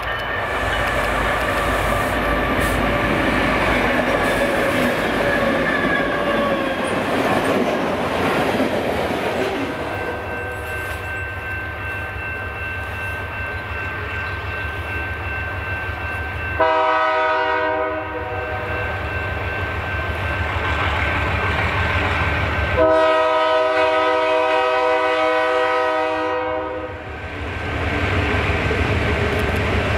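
A train rumbling for the first few seconds. Then Ontario Southland Railway MLW RS18 diesel locomotives approach with a steady low engine rumble from their ALCO 251 engines. The horn sounds a short blast about 17 seconds in and a long blast of about four seconds around 23 seconds in.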